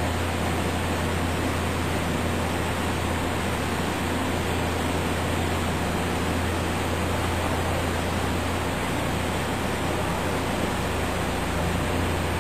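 Steady hiss with a strong low hum from a Fryer MB-series CNC vertical mill running while its table moves the part under a spindle-mounted touch probe in an automatic probing cycle.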